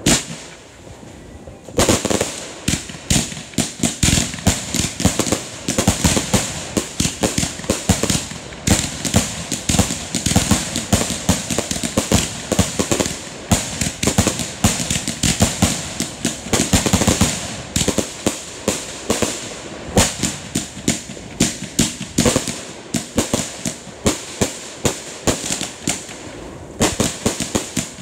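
Consumer firework cakes firing volley after volley. After a short lull at the start, rapid launch thumps and aerial bursts with crackling follow, many bangs a second, before a brief pause near the end.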